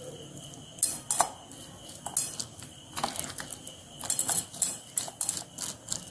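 Hand rubbing masala paste into raw kingfish slices on a plate: irregular small clicks, knocks and scrapes of fingers and fish against the plate.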